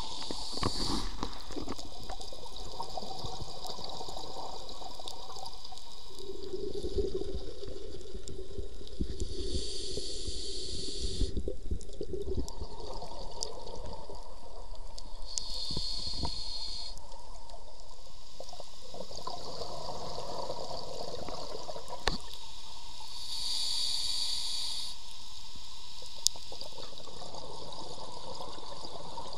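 Scuba diver's regulator breathing underwater: bursts of hissing air and bubbling every several seconds over a steady watery rush.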